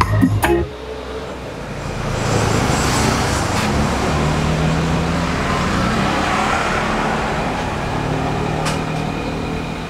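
Road traffic going by: a steady rumble and hiss that swells about two seconds in and holds. A burst of music from a speaker cuts off about half a second in.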